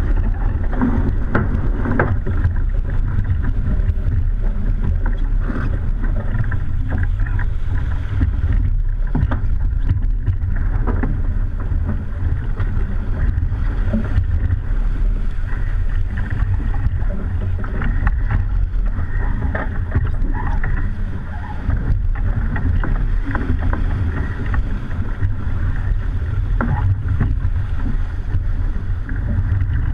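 Wind buffeting the camera microphone as a steady low rumble, mixed with rushing water and spray hitting the deck of a racing keelboat driving through chop under sail.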